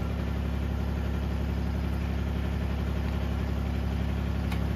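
Mini excavator engine idling steadily.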